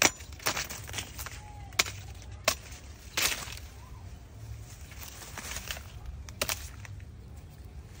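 Hand sickle chopping through green corn stalks: a series of sharp cutting strikes, several close together in the first few seconds and one more a little past halfway.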